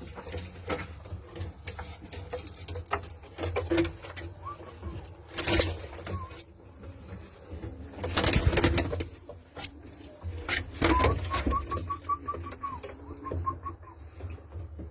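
Domestic flying pigeons cooing in a low murmur, with sharp clattering knocks and rustles. About eleven seconds in there is a quick run of short high notes.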